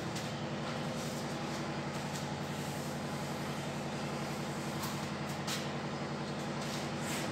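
A steady low machine hum made up of several held pitched tones, with a few faint short ticks about five seconds in and near the end.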